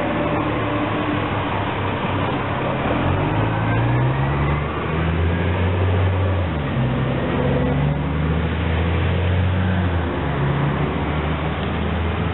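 A large engine running steadily, its pitch stepping up and down several times.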